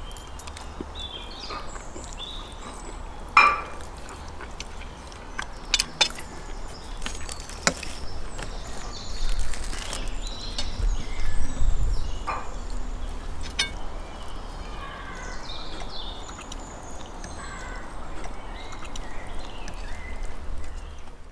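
Birds chirping, with forks clinking sharply against plates now and then, and a low rumble swelling briefly near the middle.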